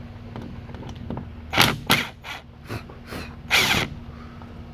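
Hand tool working out the screws that hold an old truck-topper T-handle lock: a few short, sharp metal scrapes and clicks, the loudest about one and a half seconds in and again near three and a half seconds, over a faint steady hum.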